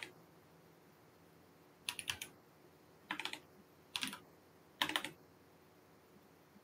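Computer keyboard being typed on in four short bursts of a few quick keystrokes each, with pauses of about a second between them.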